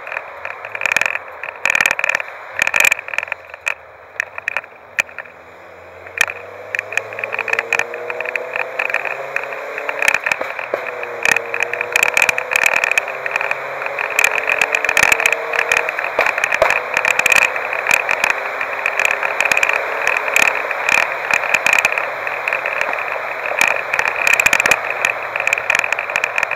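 Wind rushing past an open-top convertible, with many sharp crackles of wind buffeting the microphone. Under it the car's engine rises in pitch as the car accelerates from about six seconds in, drops back once at a gear change near eleven seconds, then climbs again.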